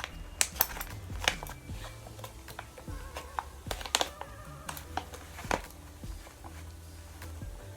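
Irregular clicks of scissors and the crinkle of a plastic bag as its corner is snipped and worked at. The scissors are blunt and not cutting through well.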